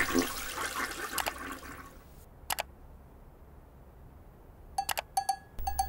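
A toilet flushing, the rush of water fading away over the first two seconds. Then quiet, with a single click and, near the end, a short run of light clicks.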